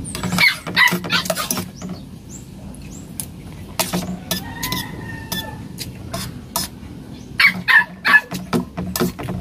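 Spoon and fork clinking and scraping on a ceramic plate of rice during a meal. Short animal calls sound in the background near the start and again near the end.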